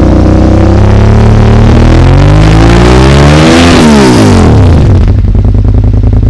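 Loud engine-like revving sound effect for an intro. Several pitches slide up and down against each other. About five seconds in it settles into a steady, fast-pulsing drone.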